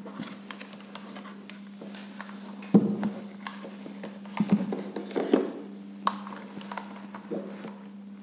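Handling noise from a plastic video intercom monitor and its wiring: scattered clicks, scrapes and a few sharper knocks as the wires are pushed into its terminals and the unit is lifted and set down on the table, the loudest knocks about three, four and a half and five seconds in. A steady low hum runs underneath.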